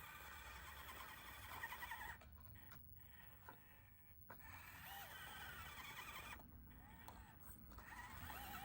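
The small electric motor and geartrain of an FMS FCX24M 1/24-scale RC crawler whining faintly in spurts, the pitch rising and falling with the throttle as it works under load up a steep slope.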